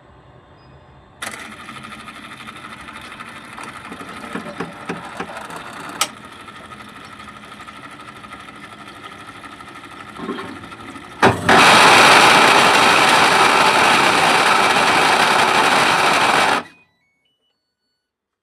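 Whirlpool top-load washing machine on its spin cycle, making a loud mechanical noise with a steady whine and a few knocks, a sign of a gearbox fault. It starts suddenly about a second in, gets much louder about eleven seconds in, then cuts off abruptly near the end.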